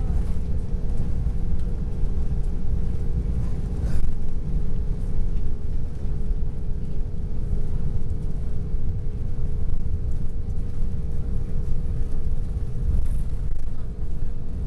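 Cabin noise inside a McDonnell Douglas DC-10-30 airliner during takeoff: a loud, steady low rumble from its General Electric CF6-50 turbofans and the airflow, with a steady hum running under it. A brief knock comes about four seconds in.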